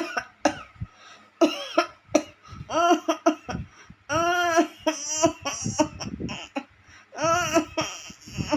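A woman coughing repeatedly in short fits, broken up by drawn-out pitched vocal sounds that rise and fall, the longest about four seconds in and again near the end.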